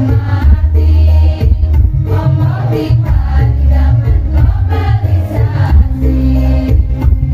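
Women's choir singing in unison into microphones over amplified backing music with a heavy bass line.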